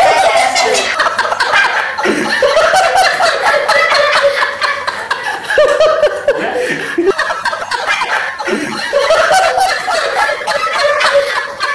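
A group of people laughing together, loudly and without a break, several voices overlapping, easing briefly and rising again in waves.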